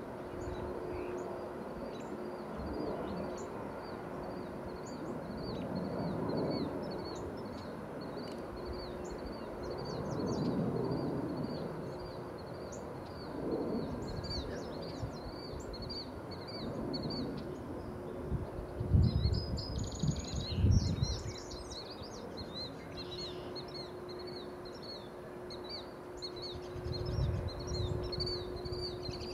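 Outdoor ambience: a steady run of short, high chirps repeating several times a second, over a faint steady hum, with low rumbles of wind buffeting the microphone about two-thirds of the way in and again near the end.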